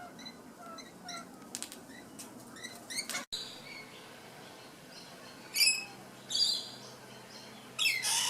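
Parrots calling: a run of short, quiet chirps, then three loud, harsh screeches in the last few seconds.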